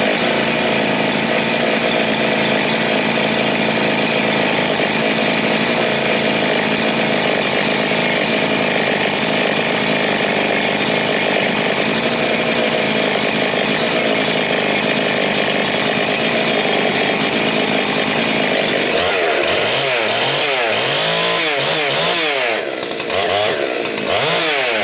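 Two-stroke chainsaw engine running steadily at high revs, then from about 19 seconds in revved up and down over and over.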